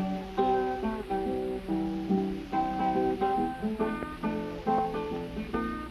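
Background music: acoustic guitar playing plucked notes in an instrumental passage, with no singing.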